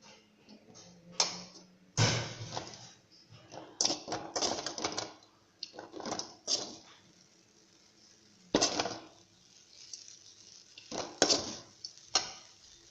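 Hard objects being handled, clattering and knocking at irregular intervals, with several sharper knocks standing out.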